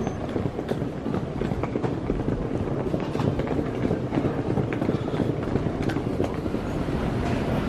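Wheeled suitcases rumbling steadily over a tiled floor, with scattered footstep clicks.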